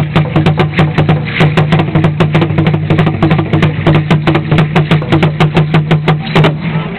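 Tall upright Aztec drum (huehuetl) beaten with two sticks in a fast, even beat of about four to five strokes a second for the dance; the drumming stops near the end.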